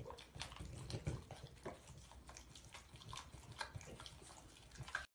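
French bulldog licking another French bulldog's face: quiet, irregular wet smacks and clicks of tongue and lips.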